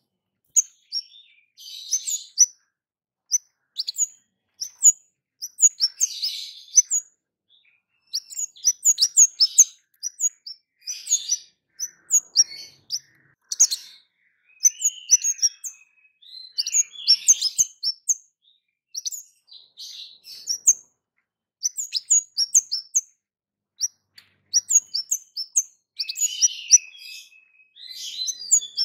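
Kemade songbird singing: runs of sharp, high 'cit' chirps, mixed with quick twittering, repeated with short pauses.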